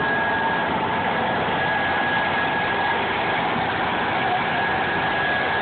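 Steady machine drone with a thin, high, constant whine over it: fairground machinery noise.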